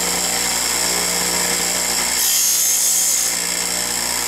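Bench grinder running steadily with a motor hum. About two seconds in, a twist drill held in a sharpening jig is pressed against the silicon carbide wheel for about a second, giving a high grinding hiss as the drill point is reground.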